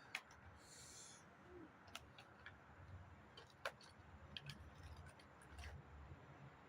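Near silence broken by a few faint, scattered clicks and taps, the sound of handling things at close range.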